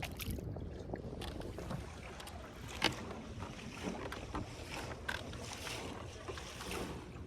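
A boat moving on a river, with a steady low rumble and wind on the microphone, broken by scattered small clicks and knocks; the sharpest comes about three seconds in.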